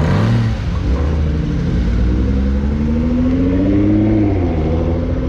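Car engines running at low revs with a deep rumble; one engine's pitch climbs steadily for about three seconds, then drops back.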